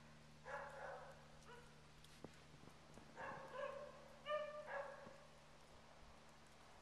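A dog barking faintly, about half a dozen short barks in a few bursts.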